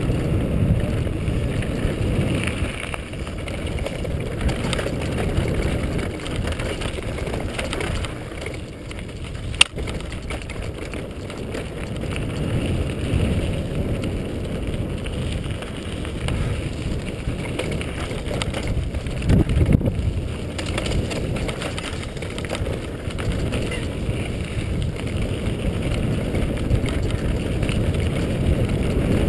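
Mountain bike riding down a gravel forest singletrack, heard from a camera carried on the bike: steady rumble and rattle of tyres on loose stones, with wind on the microphone and a single sharp knock about ten seconds in.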